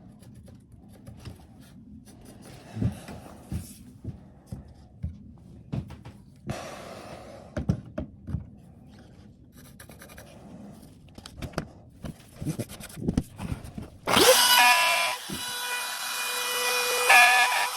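Light knocks and rubbing from handling wood at the workbench, then about fourteen seconds in an electric power tool starts up with a rising whine and runs loudly and steadily.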